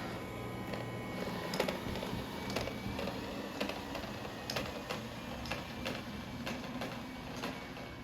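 Small machine whirring steadily, with a sharp click repeating about once a second.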